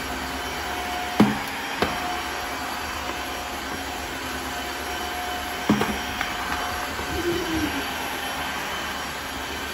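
Cordless wet-dry vacuum floor washer running steadily with a high whine as it is pushed across a laminate floor. Sharp knocks come about a second in, again just under two seconds in, and once more near six seconds.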